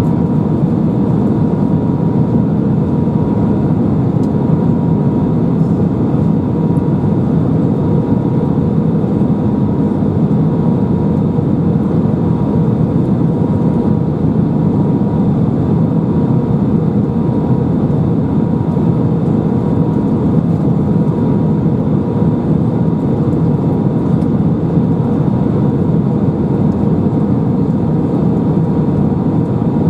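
Steady cabin noise of an Airbus A319 airliner in flight, heard from a window seat over the wing: an even, low rush of engines and airflow with a faint constant whine, unchanging throughout.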